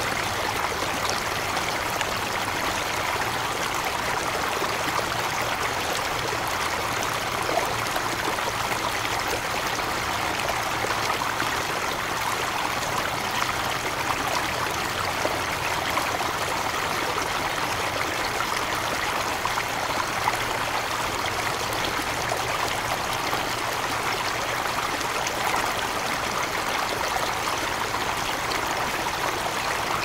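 Steady rain: a dense, even patter of many small drops that neither builds nor eases.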